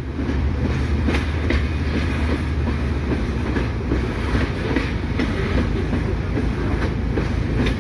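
Loaded coal hopper cars of a freight train rolling slowly past, a steady low rumble with occasional knocks from the wheels on the rails.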